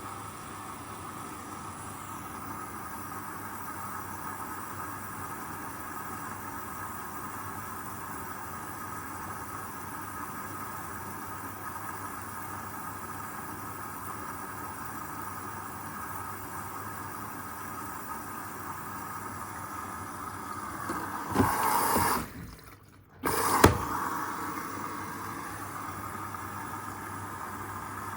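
Hoover Custom Vision washing machine running steadily with a hum during its rinse. About three quarters of the way through, a louder stretch is cut by a moment of near silence and ends in a sharp knock.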